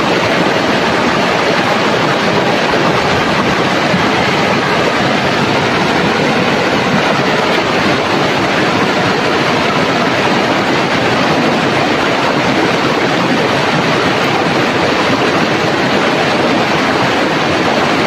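Rapids of a shallow, rocky river rushing steadily over stones: a loud, even rush of water.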